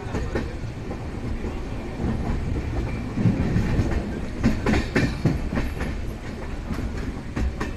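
Sinhagad Express passenger coaches running along the track: a steady rumble of wheels on rail with clickety-clack as the wheels cross rail joints, a cluster of clacks in the middle and another near the end.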